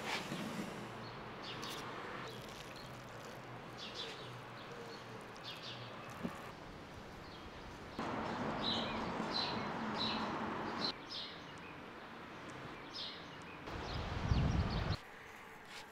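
Outdoor background with small birds chirping, over the soft rubbing and handling noise of hands working raw ground meat, pasta tubes and bacon. The background changes abruptly several times, with the louder handling noise around the middle and near the end.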